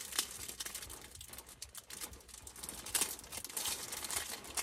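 Fudge packaging crinkling and rustling as it is handled, a run of small crackles and clicks.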